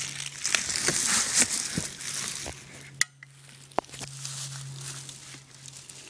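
Crunchy rustling with scattered small clicks that dies away after about two and a half seconds, then two sharp knocks a little under a second apart, the first about three seconds in: the sounds of reaching up a tree trunk to hang a birdhouse.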